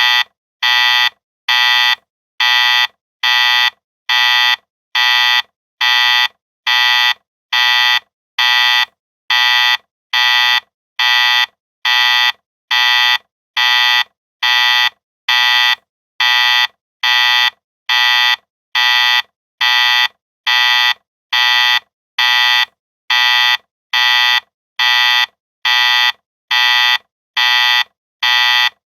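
Factory warning alarm: an electronic emergency buzzer beeping in a steady, even rhythm, a little more than one harsh, buzzy beep a second with short silent gaps between.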